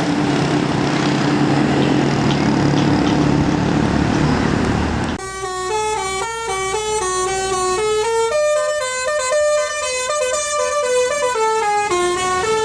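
A tour bus's engine running with road noise, then about five seconds in a telolet basuri musical horn starts playing a quick melody of clear, stepping notes that goes on to the end.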